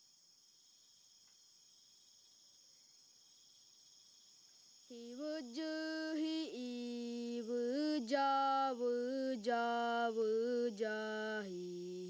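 Insects trilling faintly and steadily, then about five seconds in a single voice begins a slow chant in long held notes that step up and down, with the insect trill going on above it.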